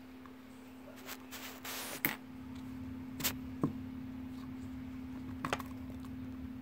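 Light handling noise of small plastic toy pieces on a desk: a few soft clicks and a brief rustle, over a steady low hum.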